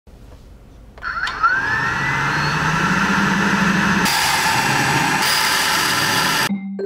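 Small electric coffee roaster starting up: its motor spins up with a rising whine about a second in, then runs steadily as whole beans tumble in the glass chamber, a louder hiss joining about four seconds in. It cuts off abruptly near the end, and light mallet-percussion music begins.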